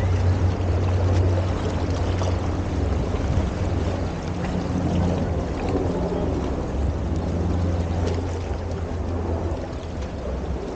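Wind buffeting the microphone: a steady low rumble under a fluctuating wash of outdoor noise.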